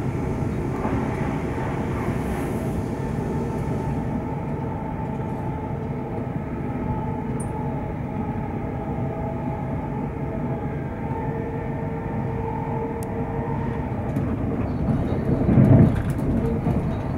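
Siemens Desiro Class 350 electric multiple unit running along the line, heard from inside the carriage: a steady rumble of wheels on the rails with a steady whine over it. A louder low thump comes near the end, along with a few light clicks.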